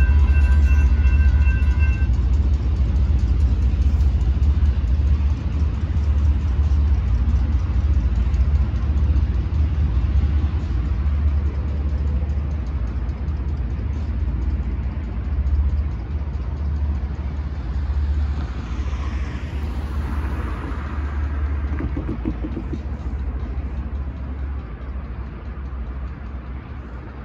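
Railroad crossing bell ringing as the gates rise, stopping about two seconds in. A low steady rumble fills the rest, and a vehicle passes about twenty seconds in.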